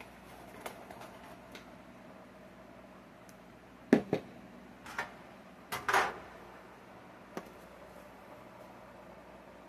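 Handling noise from a phone camera held against clothing. There are two sharp knocks about four seconds in, another knock about a second later, and a short scuffing rustle about six seconds in, over a low steady room hum.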